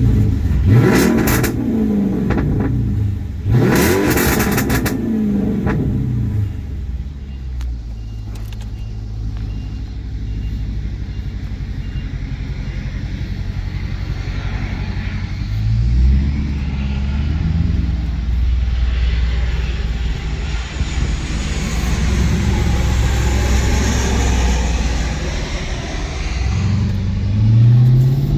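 2017 Dodge Charger R/T's V8 exhaust: the engine is blipped twice in the first five seconds, with sharp pops and crackles as the revs fall. It then settles, rises about 16 seconds in to a steady higher rpm held for several seconds, and starts another rev near the end.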